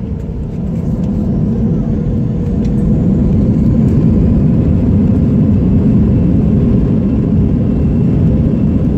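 Inside the cabin of an Airbus A320: a deep jet-engine rumble grows louder over the first three seconds as thrust comes up for takeoff, then holds steady, with a faint high whine joining in about halfway.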